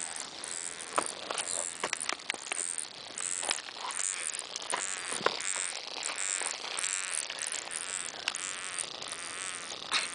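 A strange buzzing, crackling noise coming from a clump of angel's hair (feather) grass: a steady high hiss with scattered sharp clicks and ticks through it.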